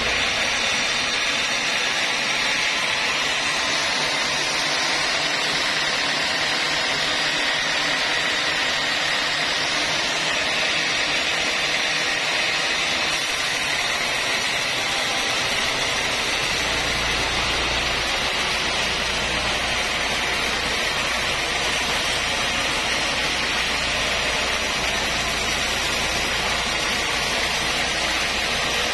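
Sawmill band saw running steadily, its blade sawing lengthwise through a large timber block: an even, unbroken hiss and whine with no pauses.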